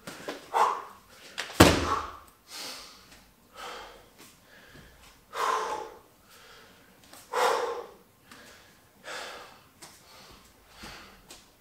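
A Suples Bulgarian bag dropped onto a gym mat with one heavy thud about two seconds in, followed by hard breathing: loud exhales every one to two seconds as the athlete recovers from a set of bag spins.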